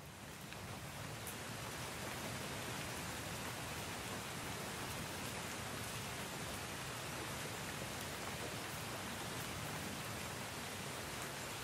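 Steady rain: an even hiss of falling rain that fades in over the first second or so, then holds level.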